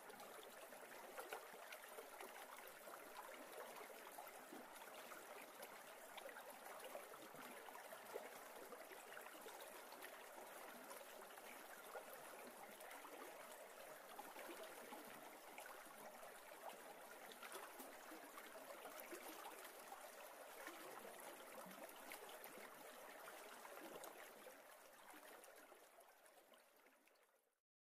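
Faint, steady rush and trickle of a shallow river flowing over rocks, fading out near the end.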